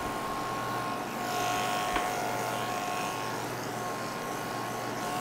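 Electric pet clippers running with a steady hum as they shave a Persian cat's coat close to the skin, with a small click about two seconds in.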